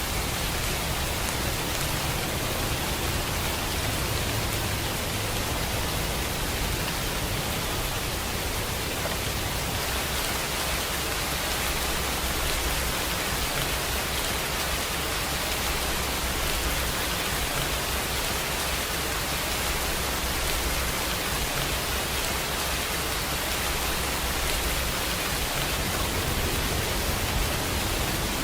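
Steady rain, an even hiss of falling water without separate drops standing out; it grows a little brighter about ten seconds in.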